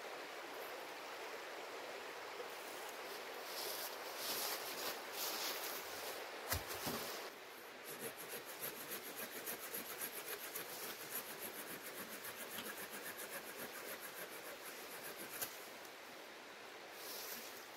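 Steady sound of a shallow stream running. In the first part, dry branches and leaves rustle and crack as they are handled. From about seven seconds in, a hand saw cuts through a branch in even strokes, about two to three a second, which fade out near the end.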